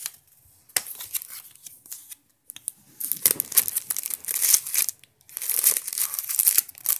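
Clear plastic wrap crinkling and rustling as hands handle and pull at it around a power bank. It comes in irregular stretches with short pauses, and is densest from about three seconds in.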